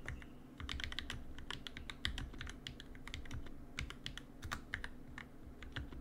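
Typing on an NK65 Entry Edition 65% mechanical keyboard fitted with lubed and filmed Durock L2 linear switches: an uneven stream of short, sharp keystroke clacks, a few a second.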